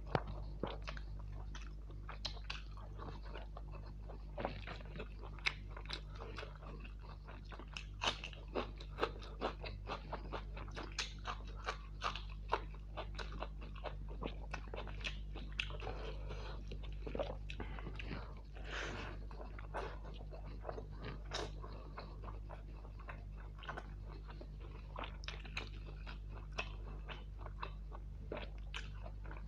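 Close-miked eating of spicy mutton curry with rice and green chillies: steady chewing with irregular crunchy bites and sharp mouth clicks. A steady low hum runs underneath.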